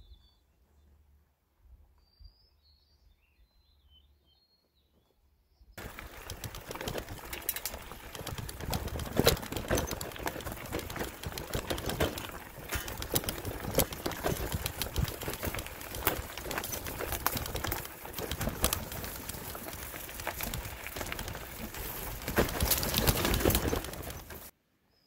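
A few faint bird chirps. Then, about six seconds in, a loud, dense rattling and knocking begins: a loaded touring bicycle ridden over a rough, overgrown old logging road, heard close up from a handlebar-mounted camera, with brush brushing past. It cuts off abruptly near the end.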